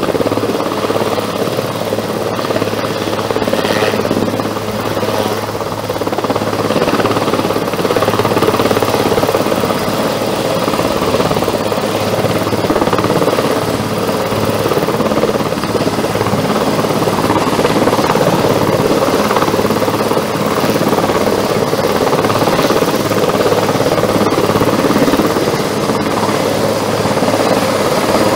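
Sikorsky S-61 helicopter's main rotor and twin turboshaft engines running at takeoff power as it lifts off and climbs, a dense steady throb over a constant low hum, getting a little louder about six seconds in.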